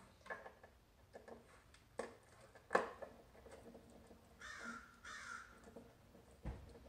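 Hand screwdriver and drawer hardware clicking and knocking against a wooden dresser drawer as the hardware is unscrewed, the sharpest knock a little under three seconds in. A crow caws twice about halfway through, and a low thump comes near the end.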